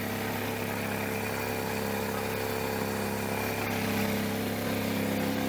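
DeWalt D55168 15-gallon air compressor running steadily and filling its tank, a constant motor-and-pump hum. Its pump has just been rebuilt with a new connecting rod, piston and cylinder and head o-rings, and it now sounds much better and builds pressure.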